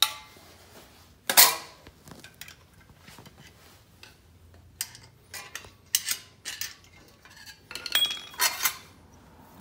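Sharp metal clanks and clinks from a homemade louver punch die, a steel punch in an aluminium base, being handled and pried open with a screwdriver. The loudest knock comes about a second and a half in, with a quick cluster of clinks near the end.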